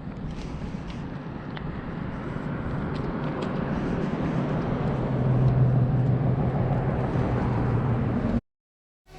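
A motor vehicle's engine rumbling and humming, growing steadily louder as it draws near, then cutting off abruptly near the end.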